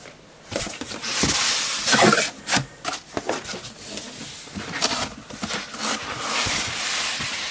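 Cardboard shipping box being opened: the flaps fold back, then white foam packing inserts rub and scrape against the carton as they are worked loose, with scattered knocks and clicks.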